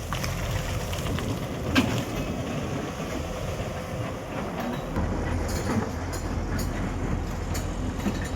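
Hyundai 210 excavator's diesel engine running steadily, with sharp knocks: one loud one about two seconds in and a run of them in the second half. About five seconds in the engine note becomes deeper and louder, as under heavier load.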